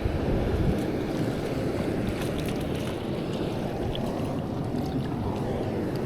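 Steady rush of flowing stream water, with a few faint clicks over it.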